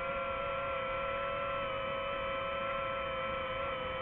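Quadcopter drone's motors and propellers whining steadily at several fixed pitches while it hovers.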